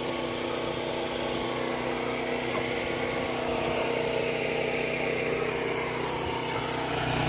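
A boat engine idling steadily with an even, unchanging hum.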